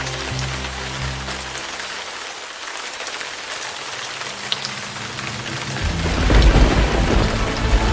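Steady rain falling, with a low rumble of thunder that builds about six seconds in and becomes the loudest sound.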